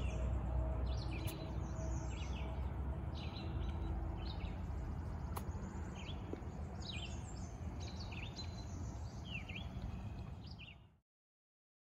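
Small birds chirping over a low outdoor rumble, typical of wind on the microphone, with a couple of faint sharp clicks. The sound fades and cuts to silence about a second before the end.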